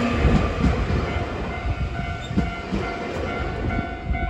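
Nankai 9000-series electric commuter train passing and running away, a low rumble of wheels on rail with scattered clacks over the rail joints. The rumble slowly fades as the last car goes by.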